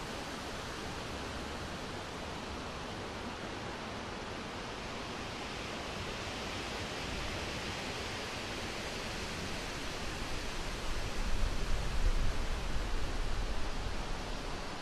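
Surf breaking on a beach: a steady rushing noise that swells louder, with a low rumble, from about ten seconds in to near the end.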